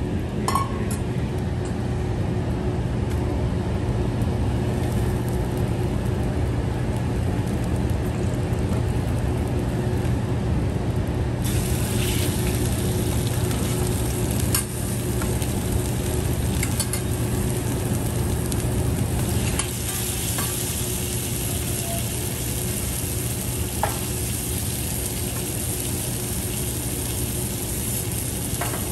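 Food sizzling on a hot teppanyaki steel griddle: an egg and rice frying, the sizzle turning louder and brighter about twelve seconds in as more food goes on, easing again a few seconds later. Occasional short clicks of metal utensils against the griddle over a steady low hum.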